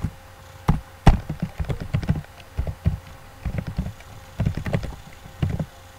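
Typing on a computer keyboard: irregular key clicks and taps in small clusters, the loudest about a second in.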